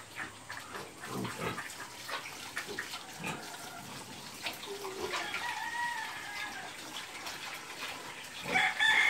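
Rooster crowing: one long crow about five seconds in, falling at its end, and a louder one starting near the end. Light scattered knocks in the first few seconds.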